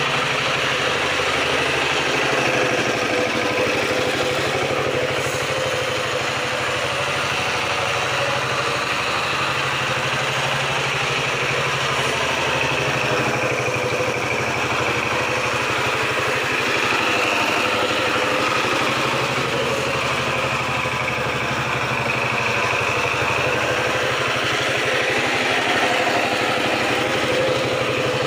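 Kamco two-wheel power tiller's single-cylinder diesel engine running steadily as the tiller is ridden in circles over spread straw, its pitch rising and falling only slightly.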